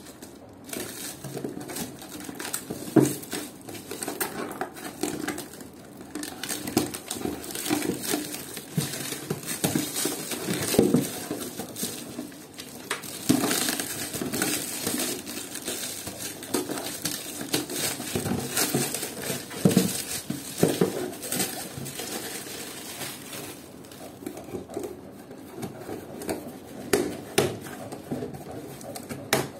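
Clear plastic stretch wrap crinkling and tearing as it is pulled off a cardboard box, with the cardboard being handled, rubbed and knocked now and then.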